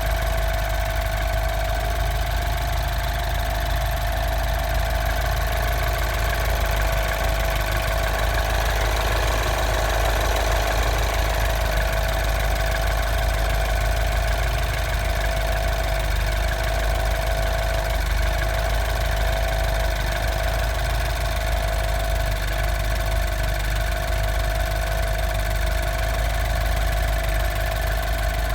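Mini John Cooper Works R56's N18 1.6-litre turbocharged four-cylinder engine idling steadily, with a steady mid-pitched tone over the engine's running: the strange noise the owner is recording.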